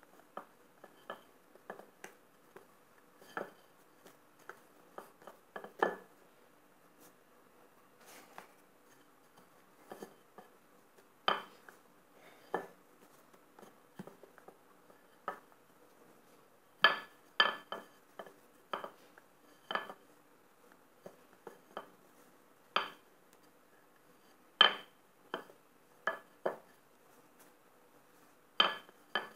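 Wooden rolling pin rolling out dough on a granite countertop: irregular sharp knocks and clacks as the pin is set down and strikes the stone, a few of them much louder than the rest.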